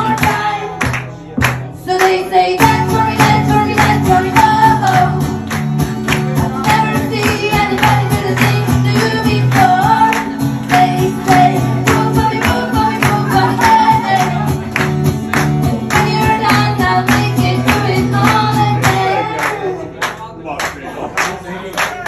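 A woman singing live to her own strummed acoustic guitar. The guitar thins out briefly near the start, then comes back with fuller, steady strumming under the sung melody.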